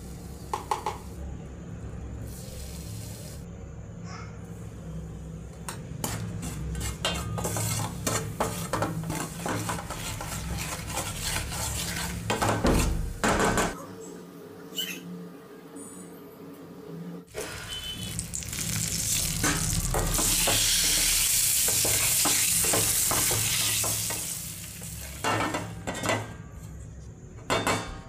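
Chilli powder and spices frying in oil in a stainless steel pan, with a spoon stirring and scraping against the pan in many quick clicks. About two-thirds of the way through, a much louder, steady sizzle rises for several seconds, then fades back to stirring.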